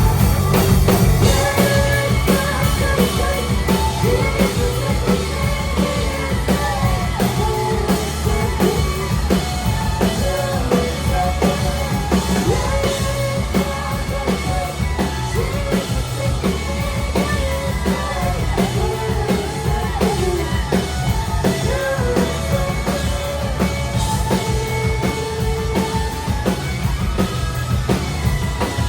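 Live rock band playing: singing over drum kit and guitar, loud and dense throughout.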